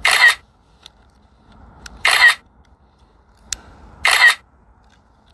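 Drone app's camera-shutter sound effect, three times about two seconds apart, each one marking a photo frame captured for a hyperlapse.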